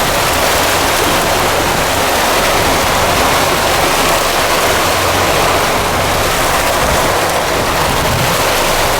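Steady rush of water and wind noise aboard a small sea-fishing boat, with a low steady hum underneath.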